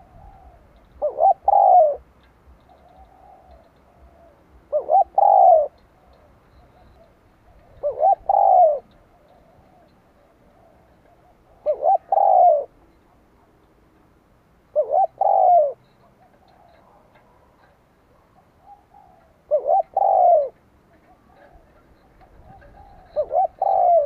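Spotted dove cooing: seven song phrases, one every three to four seconds, each a few quick coos ending in a longer, louder note, with faint soft coos in between.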